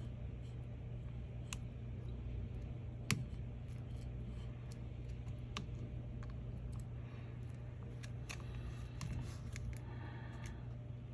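Scattered small clicks and taps from handling tools and phone parts at a repair bench, sharpest about three seconds in, with a quick run of taps near the end, over a steady low hum.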